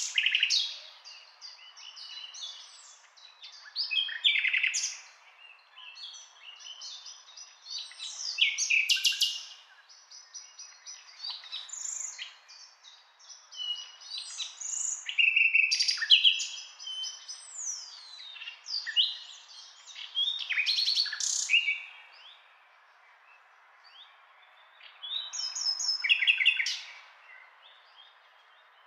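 Songbirds chirping and singing in phrases of rapid trills and short whistled notes, separated by short pauses.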